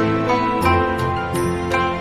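Gentle instrumental background music: soft plucked and sustained notes over a steady low bass.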